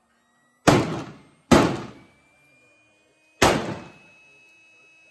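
Three sharp rifle shots from the firing line, the first two less than a second apart and the third about two seconds later, each with a short echoing tail. A faint steady whine from the small air pump blowing through the rifle's action as a barrel cooler lies underneath.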